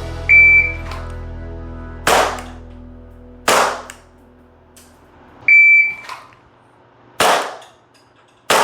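Umarex Glock 19X gas blowback airsoft pistol fired twice in each of two drills, the two shots of each pair about a second and a half apart. Before each pair comes a short high electronic beep.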